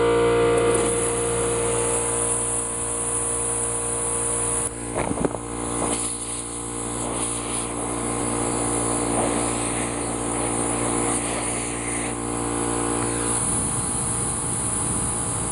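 Compressed air hissing steadily out of an RV's low-point water-line drain over a steady motor hum, with a couple of brief knocks about five seconds in. Only air is coming out, with no water, so the line is blown clear.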